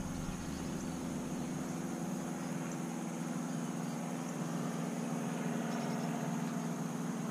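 A distant engine drones steadily and low, swelling slightly about two thirds of the way through.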